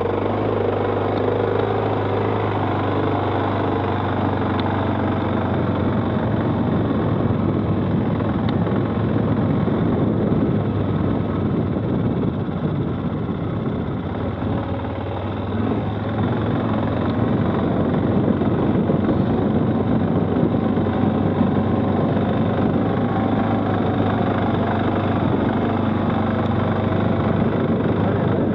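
Stels 800D ATV engine running steadily under way, with a dense rush of riding noise over it; it eases off briefly around the middle and then picks up again.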